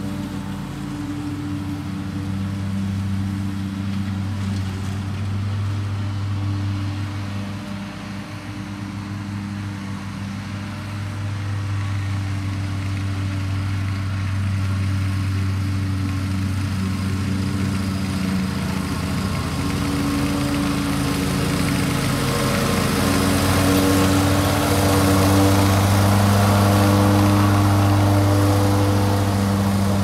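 Zero-turn riding mower's engine running steadily while mowing, its hum growing louder over the last ten seconds as the mower drives up close.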